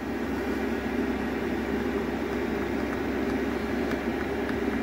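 Chinese diesel air heater running at full burn, its blower fan pushing hot air out in a steady, even hum.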